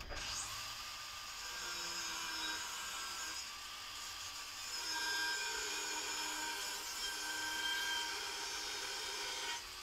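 Angle grinder cutting through a spring-steel leaf spring: a steady high whine over a hiss, its pitch shifting a few times as the disc bites into the steel.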